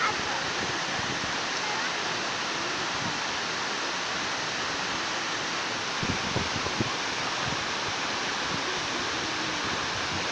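Waterfall rushing as a steady, even roar of falling water, with a few soft knocks about six seconds in.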